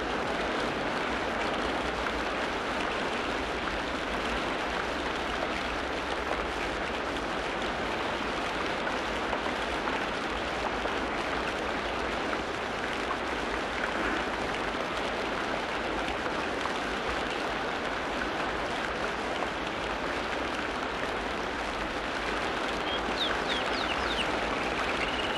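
Steady rain falling, an even patter, with a few short high bird chirps near the end.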